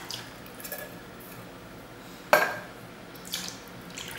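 Evaporated milk pouring from tin cans into a stainless steel mixing bowl. A sharp metallic clink comes about two seconds in, and a few lighter taps follow near the end.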